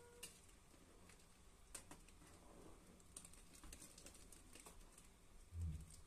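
Faint clinks and scrapes of a metal ladle against a cooking pot as it is stirred, with a dull low thump near the end.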